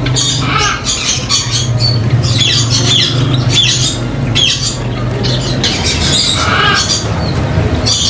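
Caged birds squawking and calling, many short, shrill calls in quick succession, over a steady low hum that stops about two thirds of the way through.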